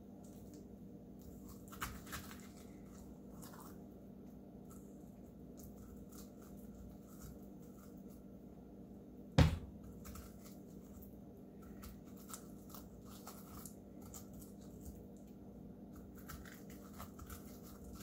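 Fingers scraping and tearing seeds and stringy pulp out of a halved squash: faint, scattered soft sounds, with one sharp knock a little past halfway through. A steady low hum runs underneath.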